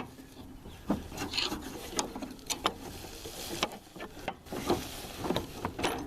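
Scattered small clicks, knocks and scraping of metal parts as a pin is worked out of a rod in a riding mower's deck linkage.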